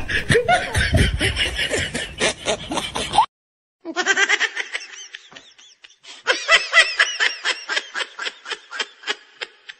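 People laughing in quick repeated 'ha-ha' bursts. The sound cuts off suddenly a little after three seconds in, then the laughter resumes about half a second later at an even pace of roughly five bursts a second.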